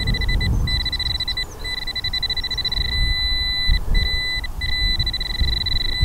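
Nokta AccuPoint pinpointer sounding its high-pitched alert tone, which breaks into rapid beeps in places and holds steady in others, with short gaps, as it is pushed through loose soil in a dug hole: the sign that the metal target is right at its tip. Low scraping and handling noise from the soil sits underneath.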